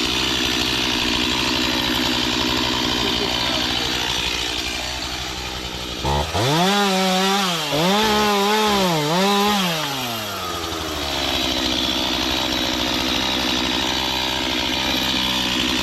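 Stihl chainsaw running at idle, then revved to full throttle about six seconds in. Its pitch dips three times over about four seconds under load, then falls back to idle.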